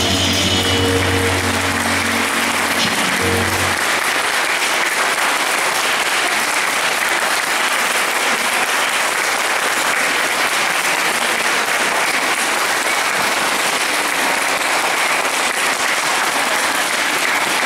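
Audience applauding steadily after a performance. The music's closing chord holds under the clapping for the first three seconds or so, then stops.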